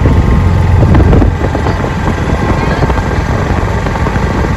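Auto-rickshaw engine running as the three-wheeler drives along the road, with wind rumbling on the microphone. It is a steady, dense rumble that eases slightly about a second in.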